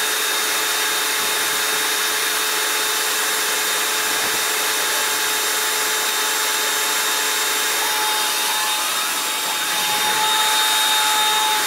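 Battery-converted trolleybus running its electrical equipment with a steady whirring hiss and a thin high whine. About eight seconds in, a second steady whine sets in and the sound swells a little as the trolleybus pulls away.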